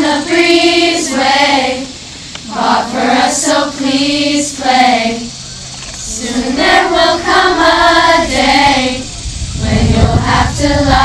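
A large group of girls singing a camp song together in unison. The singing comes in phrases of two or three seconds with short breaks between them.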